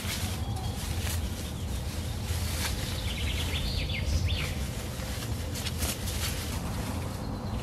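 Leafy branches rustling as they are handled and worked into a stick frame, over a steady low rumble. A bird sings a quick run of short high notes about three seconds in.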